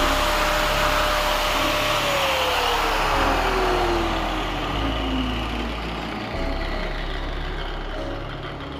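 Electric angle grinder with an abrasive disc whining at full speed, then switched off about two seconds in and coasting down, its whine falling steadily in pitch as it slows.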